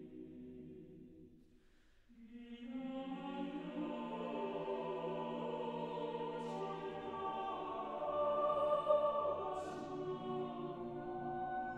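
Choir singing slow, held chords. One phrase dies away about a second and a half in, and a new one swells in about two seconds in.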